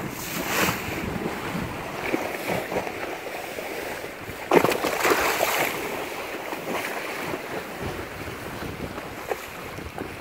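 Wind-driven salt-water waves slapping and splashing against a seawall bulkhead, with wind buffeting the microphone. The splashes come irregularly, the biggest about four and a half seconds in.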